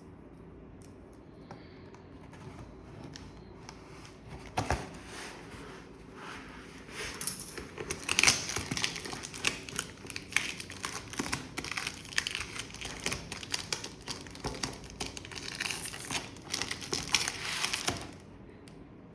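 Shipping packaging being torn open and crinkled by hand: after a single knock about five seconds in, a long stretch of dense crinkling and tearing that stops suddenly near the end.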